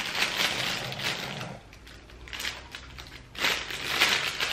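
Clear plastic bag crinkling as it is handled and a soft dog treat is picked out of it. The crinkling comes in bursts, with a quieter stretch in the middle and the strongest burst near the end.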